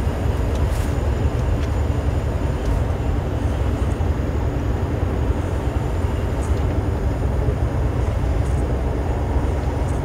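Semi truck cruising on a highway, heard from inside the cab: a steady engine drone and road noise with a deep low rumble.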